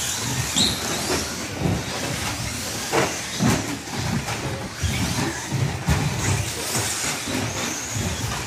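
Several electric 2WD short course RC trucks racing on a carpet track: a steady hiss of tyres and motors with high-pitched motor whines that rise and fall, and occasional sharp knocks.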